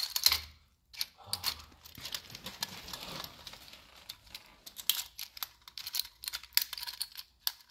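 Vintage wind-up jump-rope dog toy's clockwork being wound by its key: a run of irregular small clicks and ratcheting, after a knock at the start as the toy is picked up.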